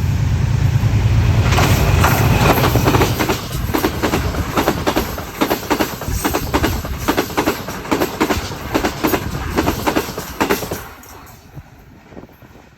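Pakistan Railways Green Line Express train passing on the track. A heavy low rumble comes first, then a fast run of wheel clacks over the rail joints that stops suddenly about eleven seconds in, leaving a faint fading hum.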